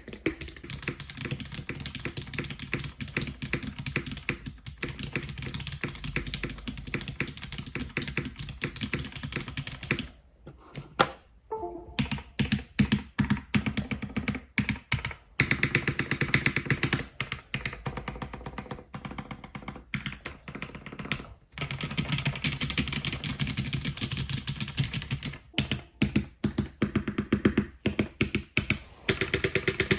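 Fast typing on a custom mechanical keyboard with lubed Cherry MX Black linear switches in an aluminium plate: a dense, continuous run of keystrokes. It pauses briefly about ten seconds in and dips again around twenty-one seconds.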